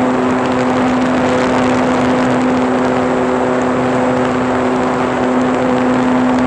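RC model plane's motor and propeller running at a steady pitch, recorded close up by a phone mounted on the plane, under a heavy rush of wind noise.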